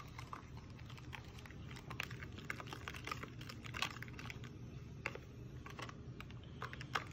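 Metal spoon stirring a liquid dressing of soy sauce, vinegar and peppercorn oil in a plastic container, tapping and scraping against the sides and bottom in a run of light, irregular clicks.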